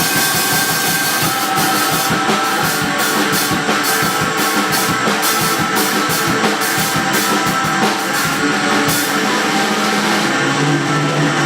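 Live band playing loud rock music, a drum kit keeping a steady beat.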